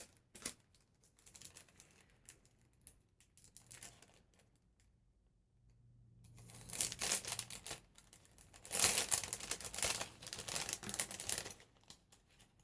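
Crinkly wrapping being handled and opened by hand: a few light rustles at first, then several seconds of steady crinkling in the second half.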